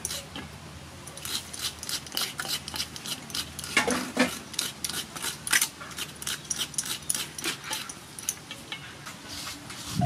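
Fresh coconut flesh being scraped out of a half shell with a wooden-handled scraper over a metal tray: a rapid, uneven run of short rasping strokes.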